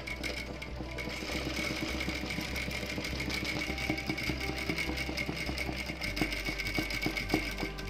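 Domestic electric sewing machine running steadily, its needle stitching rapidly through fabric stretched in an embroidery hoop, filling a motif with free-motion satin stitch. A few louder clicks come near the end.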